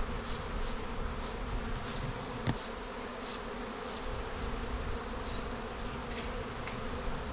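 Honey bees buzzing in a steady hum around a just-relocated hive, circling and fanning at the landing board as they look for their new entrance. Faint short high chirps come through now and then, and there is one sharp click about two and a half seconds in.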